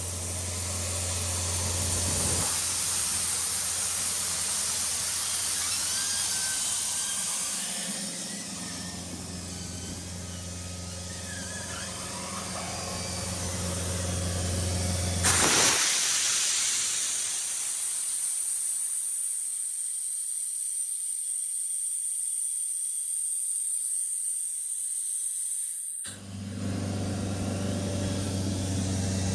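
Doosan 7/41-N mobile compressor running on its four-cylinder Yanmar 4NTV88 diesel: a steady low engine hum under a strong hiss. About halfway through comes a sudden loud rush of hiss, the engine hum drops out for about ten seconds while a high hiss carries on, then the hum comes back.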